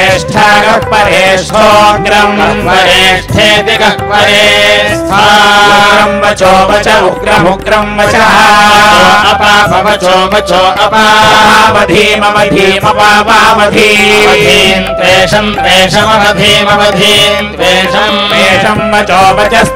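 A man chanting devotional verses in a melodic line through a microphone and loudspeaker, with short pauses between phrases and a steady low hum underneath.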